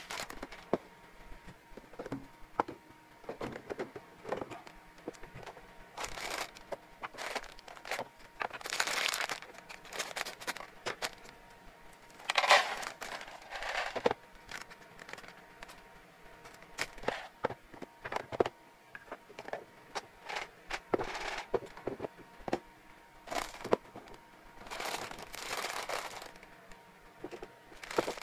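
Plastic snack bags crinkling and rustling as dry hamster treats are poured into a clear plastic storage container, with many small clicks and taps from the treats, the container and its lid. The loudest rustle comes about halfway through.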